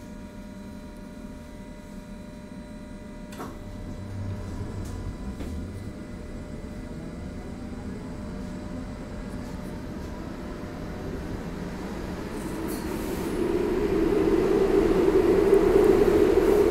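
Interior of a light-rail (U-Bahn) car: a steady electrical hum with faint high whines, then a click about three and a half seconds in. After that a low rumble builds as the car gets under way, growing into a loud running noise over the last few seconds.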